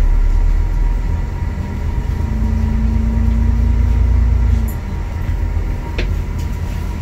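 Alexander Dennis Enviro400 MMC double-decker bus running, heard from inside the saloon: a loud, deep engine rumble with a faint steady whine, easing slightly about five seconds in. A single sharp click about six seconds in.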